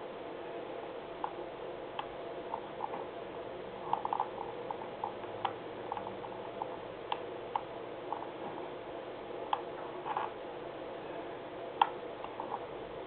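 Scattered short clicks and ticks of a computer mouse scrolling through a document on screen, irregularly spaced with a small cluster about four seconds in and a sharper click near the end, over a steady low hum.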